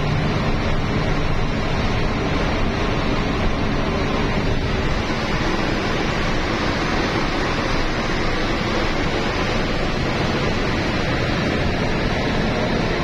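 Steady cabin noise of a bus travelling at speed: tyre and road noise, engine and rushing air blended into an even rumble that holds without change.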